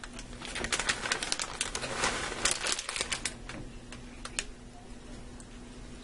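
Soft rustling and quick light clicks of a hand scattering and patting shredded cheddar cheese over macaroni in a metal baking pan, busiest in the first three seconds, then a few sparse ticks and quieter.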